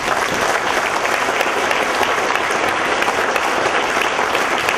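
Loud audience applause, many hands clapping at once.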